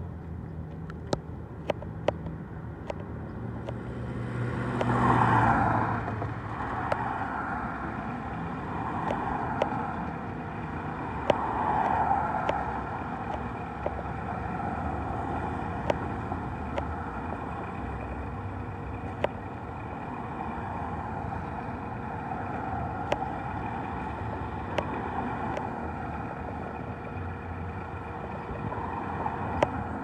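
Fire truck's diesel engine idling steadily, with short sharp clicks every second or so and a louder rush of noise about five seconds in.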